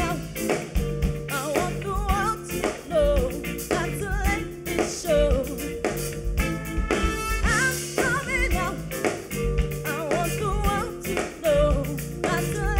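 Background music: a song with a lead singer over a band with drums and bass, the singing wavering in pitch over a steady beat.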